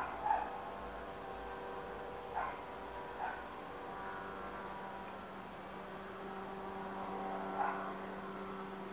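Steady low drone of a distant helicopter overhead, with a dog barking about five times: twice at the start, twice a few seconds in, and once near the end.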